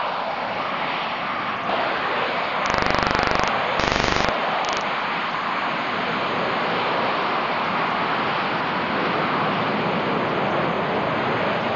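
Jet engines of the Buran atmospheric test vehicle, its four AL-31 turbofans, running in a steady loud rush. Two short bursts of loud rapid crackle come about three and four seconds in.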